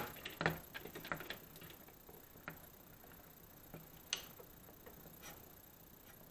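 Light clicks and taps of steel flat bars being handled and set in place on a drill press table: a quick run of ticks in the first second or so, then a few single taps spaced out.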